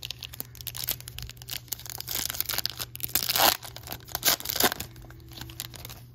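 Trading-card pack's foil wrapper being torn open and crinkled: a run of crackling rustles, loudest about three and a half and four and a half seconds in, dying down near the end.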